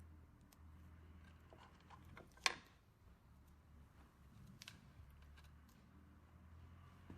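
Near silence over a low steady hum, broken by one sharp click about two and a half seconds in and a few fainter clicks.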